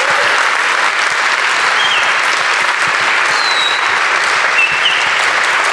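Audience applauding steadily, a dense even clapping that holds at one level.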